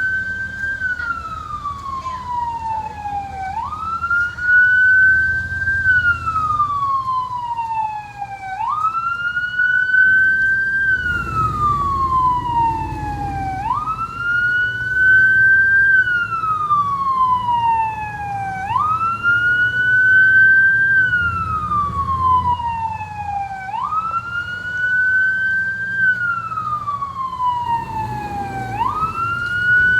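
Emergency vehicle's electronic siren on a slow wail. Each cycle rises quickly, then slides down slowly, repeating about every five seconds, with vehicle engines rumbling low underneath.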